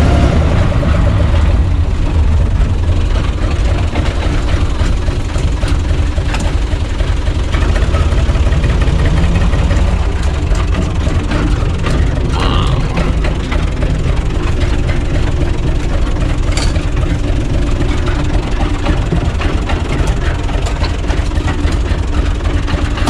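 UTB U445 tractor's diesel engine running steadily as the tractor is driven, a low drone heard from inside its open cab.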